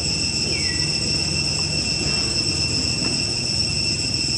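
Steady high-pitched drone of an insect chorus over a low, even rumbling background, with one brief falling chirp about half a second in.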